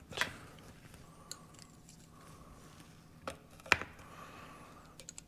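Scattered light clicks and taps of hand tools and small parts being handled while a diesel injection pump is dismantled, about five in all, the sharpest a little under four seconds in.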